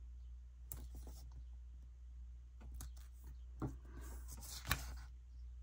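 Washi tape being pressed and smoothed onto a paper planner page by hand: faint paper rustling and a few light taps, with one sharper tick about three-quarters of the way through, over a low steady hum.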